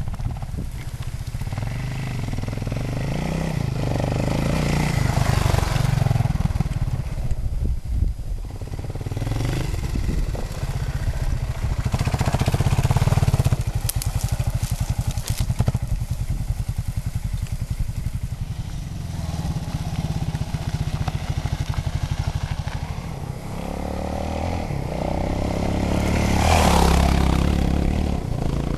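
Suzuki DR 650 single-cylinder four-stroke enduro motorcycle engine being revved and eased off again and again as it is ridden off-road. The note rises and falls throughout and is loudest about halfway through and again near the end.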